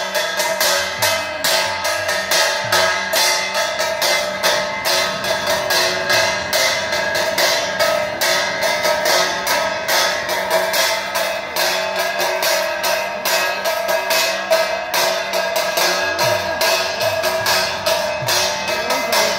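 Aarti music of brass gongs and hand cymbals struck in a fast, steady beat, with metallic ringing tones sustained over the strikes.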